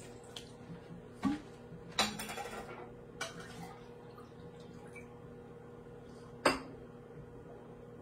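Kitchenware being handled: scattered clinks and knocks of dishes and utensils, the sharpest about six and a half seconds in, over a faint steady hum.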